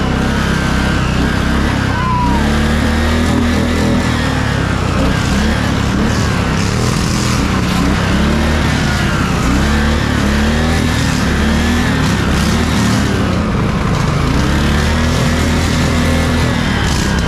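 Stock riding lawn mower's engine running hard, its pitch rising and falling again and again as the revs change.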